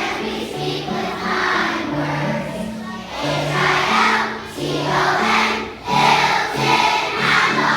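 Music with a choir singing over a line of held bass notes.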